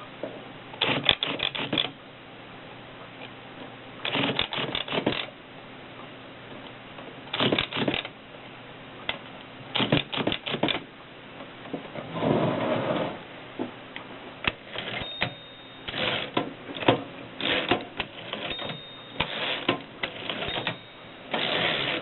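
WWII-era Continental manual typewriter being typed on: keys and typebars clacking in short bursts of several strokes with pauses between. The strokes come faster and closer together in the second half.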